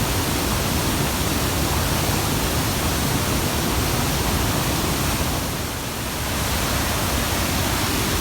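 Steady, loud rush of water from the Hogenakkal falls on the Kaveri river, a dense even roar that eases slightly for a moment about six seconds in.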